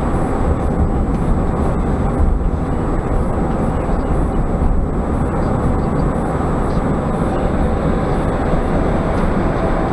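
Steady road noise heard inside a moving car's cabin at about 40 mph: tyre and wind rumble with the engine, even and unbroken throughout.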